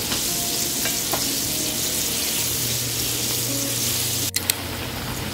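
Starch-coated chicken pieces deep-frying in hot oil, a steady sizzle. A brief break and a couple of sharp clicks a little past four seconds in.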